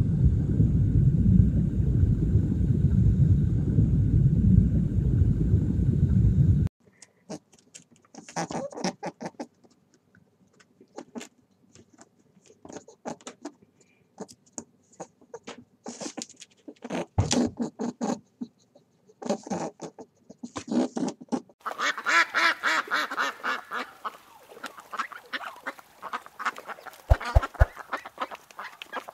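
Mallard ducks quacking and chattering rapidly as a flock, starting about two-thirds of the way through. Before that, a steady low rumble for the first six seconds or so gives way to scattered short clicks.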